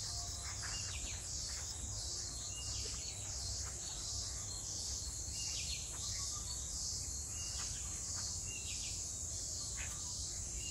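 Chorus of forest insects: a steady, high-pitched shrill that pulses regularly, with scattered short bird chirps over it.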